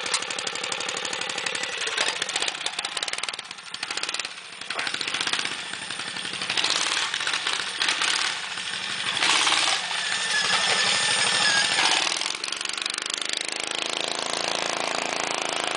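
Tecumseh single-cylinder snowblower engine on a 1971 Rupp Roadster-2 mini bike, running through a custom-made exhaust pipe. It revs up and down unevenly as the bike pulls away, then settles into a steadier note as it rides off.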